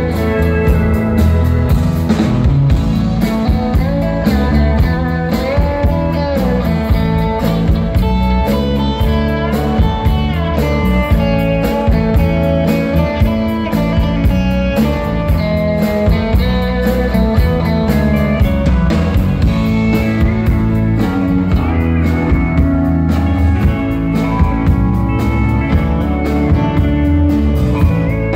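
Live country band playing an instrumental break without vocals: guitars over bass and a steady drum beat, with a lead guitar line carrying the melody.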